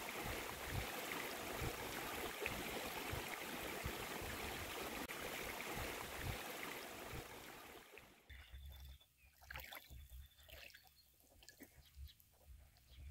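Steady rushing water, an even hiss that stops abruptly about eight seconds in, leaving only faint scattered ticks and a low rumble.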